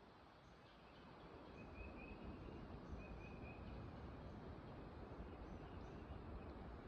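Quiet woodland ambience: a steady low noise with two short, faint bird calls about two and three seconds in.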